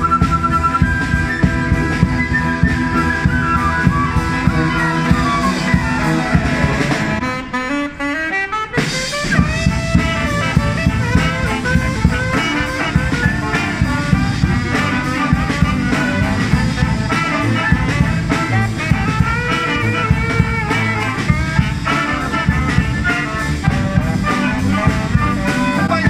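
Street brass band playing an upbeat instrumental: saxophones, trombones, flutes and sousaphone over a drum kit. About seven seconds in, a falling sweep runs into a brief break, then the band comes back in.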